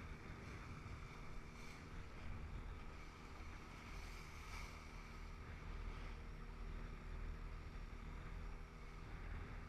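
Strong wind buffeting the microphone over the rush of water around a sailing dinghy, with a few short louder gusts or splashes.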